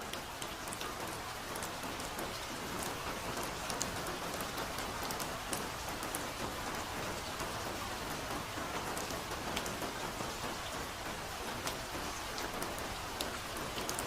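Steady soft rain falling on a forest, a continuous hiss with many small drop ticks spattering through it.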